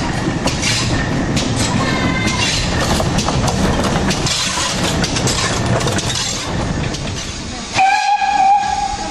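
Train running, a steady rumble with scattered rail clicks, heard from on board. Near the end a steam locomotive whistle blows once, a single steady note lasting just over a second.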